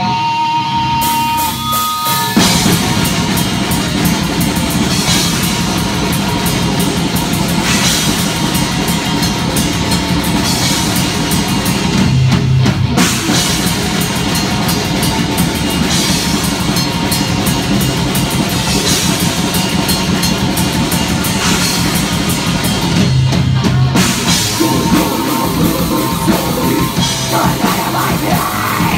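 Live metal band starting a song: a lone electric guitar picks a few notes, then about two seconds in the drum kit, bass and distorted guitars come in together, loud and dense. A voice joins near the end.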